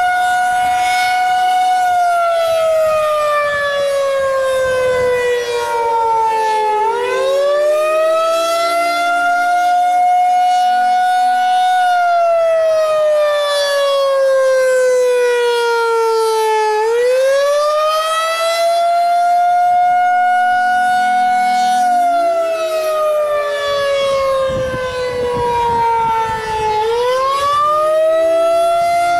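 Federal Signal 2001-SRN outdoor warning siren sounding a loud rising-and-falling signal: the tone holds high for a couple of seconds, sinks slowly for about five seconds, then swoops back up, repeating about every ten seconds. Fainter sirens further off glide up and down beneath it.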